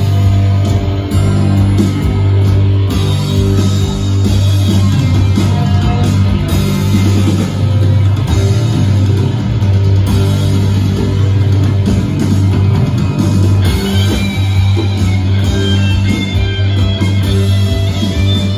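Loud guitar-driven rock music playing in a theatre.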